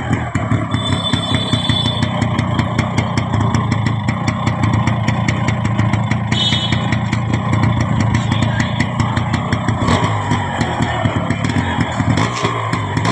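Yamaha RX135's two-stroke single-cylinder engine running, with a rapid, steady train of exhaust pulses.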